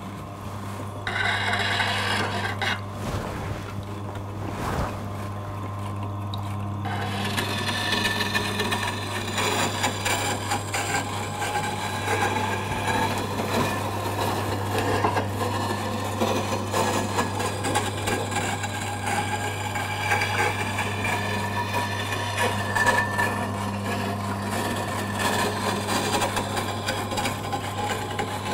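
Tormek wet grinder's motor humming steadily as its water-cooled grindstone turns, with a woodturning gouge held in the sharpening jig rasping against the stone. The grinding noise grows louder from about seven seconds in.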